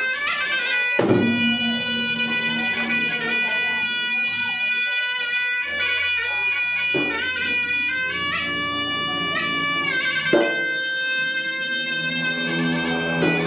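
Traditional Makassar gendang music: a shrill reed wind instrument plays a melody in long held notes that step up and down in pitch. Drum strokes from the gendang drums come in a few times.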